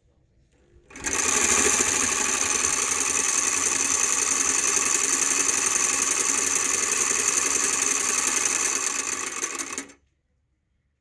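Homemade square-hole drilling machine running: its motor-driven spinning head and bit whir steadily with many even tones, starting about a second in and stopping abruptly near the end.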